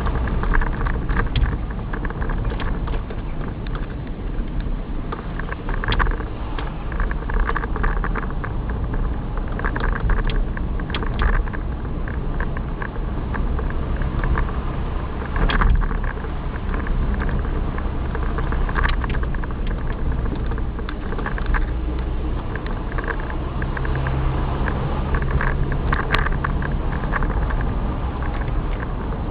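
Car engine and road noise heard from inside the cabin while driving, a steady low rumble with frequent short knocks and rattles.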